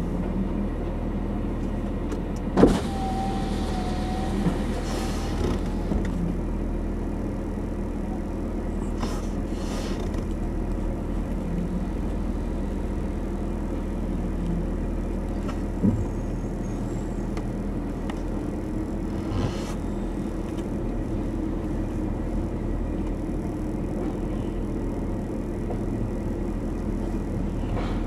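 Rear-loader garbage truck's engine running steadily at idle, with a few sharp knocks (about three seconds in, around the middle, and again a few seconds later) and a brief wavering squeal near the start.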